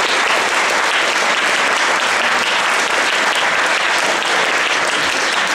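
Audience of seated guests clapping, steady and dense throughout.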